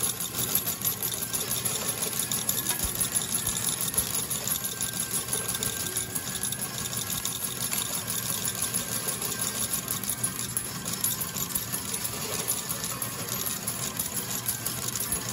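Coin pusher medal game running, with a fast, steady clatter of metal medals and machinery.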